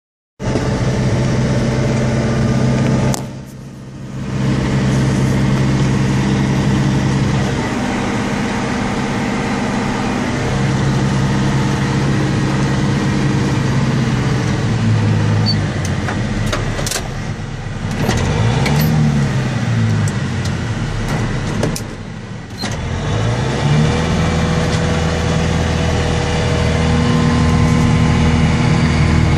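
John Deere 6320 tractor's diesel engine running as it drives a Normand inverted snowblower through deep drifted snow, heard from the cab. The engine pitch sags and recovers a few times, and the sound drops briefly twice, about three seconds in and again past the twenty-second mark.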